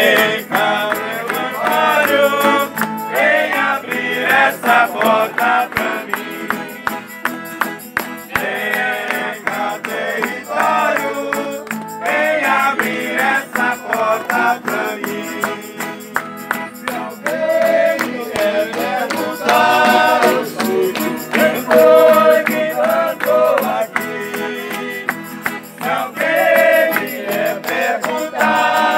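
A group of men singing a serenade together, accompanied by strummed acoustic guitars.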